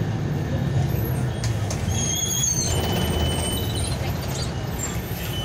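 Steady low rumble of a running vehicle, with a few short high-pitched tones in the middle.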